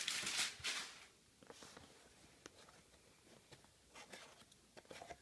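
Hands handling a cardboard trading-card display box: rustling in the first second as the box is put down, then soft scrapes and a few light taps of fingers on the cardboard.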